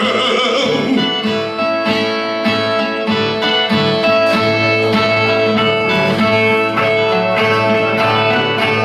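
Viola, the steel-strung folk guitar of northeastern cantoria, strummed and plucked in a steady rhythmic instrumental passage: the viola interlude played between sung stanzas of repente.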